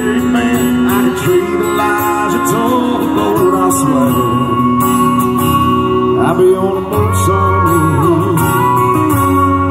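Live country music from a small band: acoustic guitar strumming with keyboard, with a sung or sliding melody line over it. A low bass note comes in about seven seconds in.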